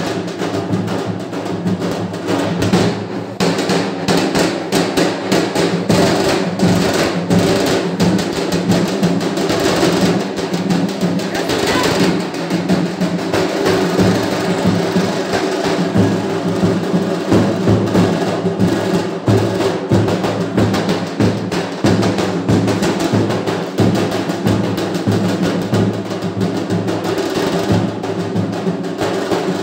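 Dhol drums played loud and fast for dancing, a dense, unbroken stream of strokes.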